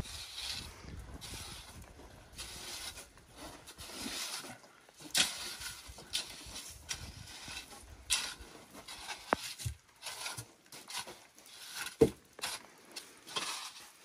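A rake scraping across a loose dirt floor in irregular strokes, with a sharp knock near the end.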